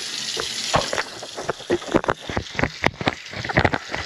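Water splashing and gurgling in a kitchen sink, in quick irregular spurts and pops.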